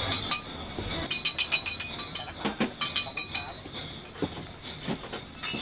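A quick run of light clinks and taps, about six a second for a couple of seconds, then a few scattered knocks.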